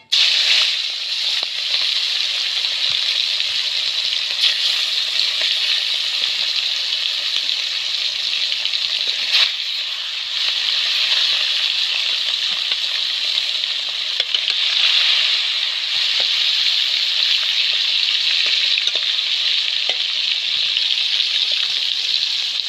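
Pieces of katla fish frying in hot mustard oil in a kadai: a steady, loud sizzle that starts suddenly as the first piece slides into the oil, with a few light pops.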